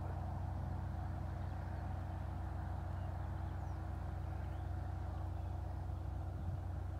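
Motor boat's engine running flat out, a steady low drone as the boat goes by at speed.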